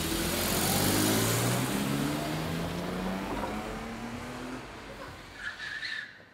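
Mercedes-Benz saloon pulling away from the kerb and accelerating, its engine note rising steadily over tyre and road noise, then fading as it drives off. There is a short high squeak near the end, and then the sound cuts off suddenly.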